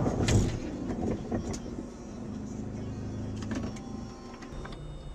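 Car driving, with steady engine and road rumble heard from inside the cabin, and a few sharp knocks, the loudest right at the start.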